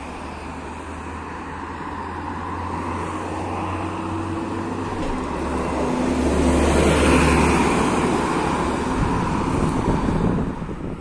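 Mercedes-Benz O405GN2 articulated city bus driving past at close range. Its diesel engine and tyre noise grow louder as it approaches, peak about seven seconds in as it goes by, then drop away as it pulls off.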